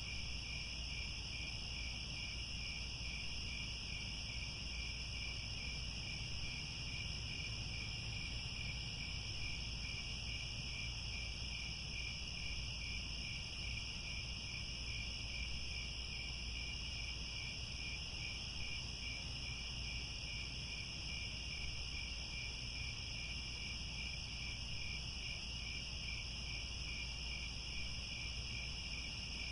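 A chorus of crickets chirring continuously in two high, unbroken layers, the lower one with a faint regular pulse, over a steady low rumble.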